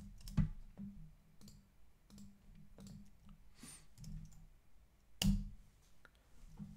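Scattered clicks of a computer keyboard as credentials are entered at a terminal prompt. Two clicks, about half a second in and a little after five seconds, are louder than the rest, over a faint low hum.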